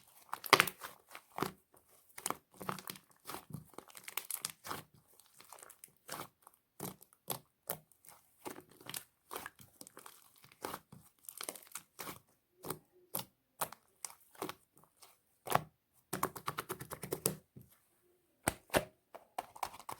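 Slime being squeezed, poked and stretched by hand, giving irregular sticky crackles and pops, with a dense run of crackling about three-quarters of the way through.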